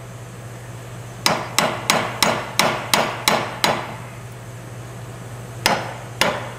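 Hammer blows on the upper control arm of a 2007 Chevy 1500, driving out the arm's rusted-in bushing pivot pin. Eight sharp strikes come about three a second, followed after a short pause by two more.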